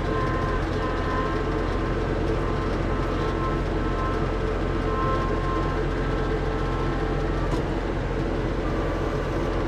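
Kubota LX2610 compact tractor's three-cylinder diesel engine running steadily, with a thin whine coming and going over it.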